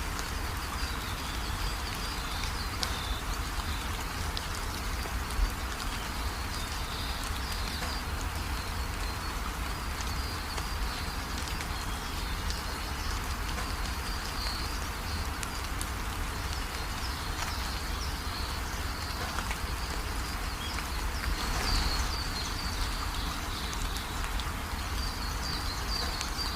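Steady rain falling, with a high chirping that comes and goes in the background.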